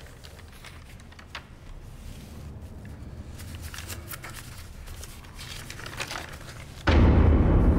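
Quiet small-room tone with faint paper rustling and soft scattered clicks as a smartphone is handled over an open logbook. About seven seconds in it gives way all at once to a loud, low outdoor rumble.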